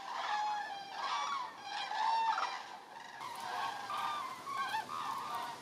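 A flock of migrating common cranes calling in flight overhead, many loud trumpeting calls overlapping continuously.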